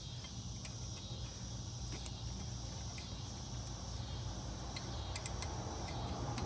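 Crickets chirring steadily, with a low hum underneath and a few faint clicks.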